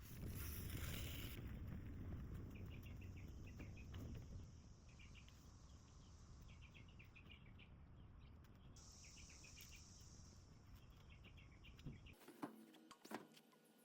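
Faint outdoor ambience: a steady high insect hiss with short clusters of chirps repeating every second or so over a low rumble. About twelve seconds in it cuts off suddenly to a quieter background with a few sharp clicks.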